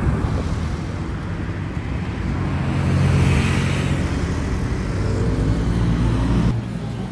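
Cars driving slowly past: a compact Ford EcoSport SUV, then a Porsche 911 Turbo whose twin-turbo flat-six engine grows loudest about three to four seconds in as it passes.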